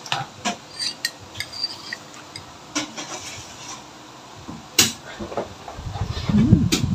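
Metal ladle and spoon clinking against a drinking glass and the salad bowl as creamy fruit salad is scooped into the glass, in scattered sharp clicks with the loudest just before the five-second mark. Near the end comes a short low hum from the person tasting.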